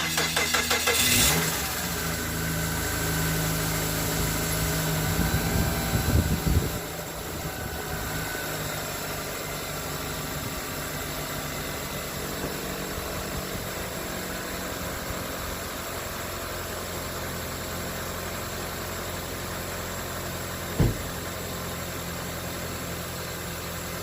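Car engine cranking briefly on the starter, catching, and running fast for a few seconds before settling into a steady idle. A single sharp knock comes near the end.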